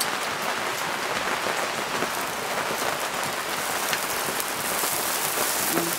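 Lamb skewers and flat slices of food sizzling on a wire grill over charcoal: a steady crackling hiss with small pops.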